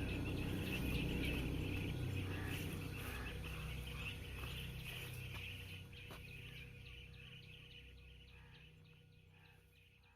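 Forest ambience: birds calling and chirping over a low rumble, the whole fading out to silence near the end.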